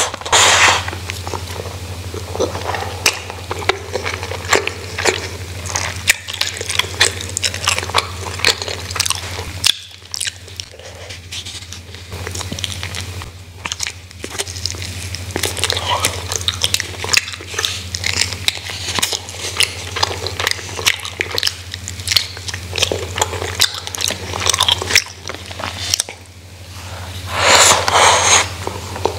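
Close-miked eating sounds of a woman eating rice and side dishes with her hands: chewing and biting, in the middle into a piece of grilled chicken. There are louder bursts at the start and near the end, and a steady low hum underneath.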